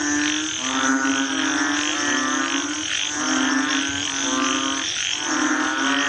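Frogs calling in a chorus: low, droning, buzzy calls, each just under a second long, overlapping one another and coming about once a second.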